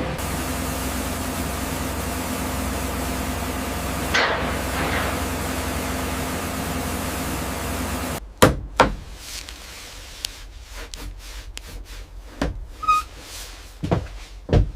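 Steady hum of running factory machinery, with a falling whistle about four seconds in. About eight seconds in the hum cuts off abruptly, leaving a quieter background broken by a string of sharp, irregular knocks.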